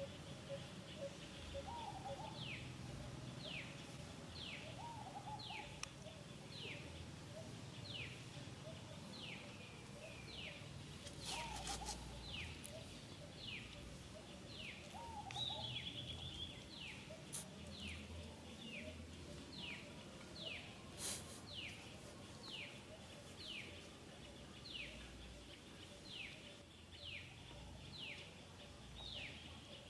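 A bird calling over and over, a short falling note about once a second, with fainter lower calls now and then and a couple of brief clicks.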